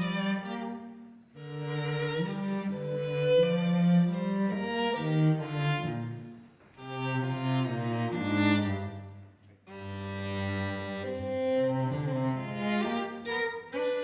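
Instrumental introduction to a musical-theatre song: a low bowed-string melody in several phrases with short breaks between them.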